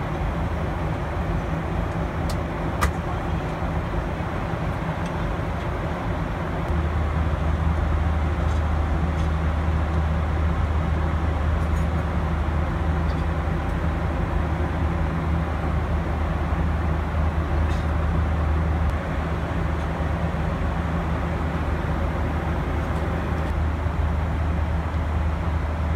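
Steady in-flight cabin noise of a Boeing 737-800: engine and airflow noise with a low hum, which grows a little louder several seconds in and eases back later. A couple of faint clicks come near the start.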